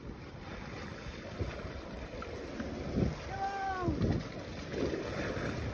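Wind buffeting the microphone over lapping water, with a few dull knocks. About three seconds in, one drawn-out call rises and then falls in pitch.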